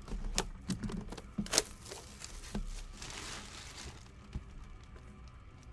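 Hands handling a Topps Museum Collection baseball card box: several sharp cardboard taps and clicks in the first second and a half, the loudest about a second and a half in. A brief crinkling rustle follows, then one more tap near the end.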